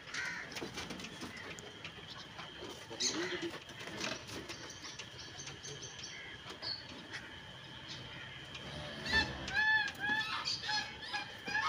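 Farmyard birds calling in a quick series of short, arched calls near the end, over a few scattered knocks and shuffling.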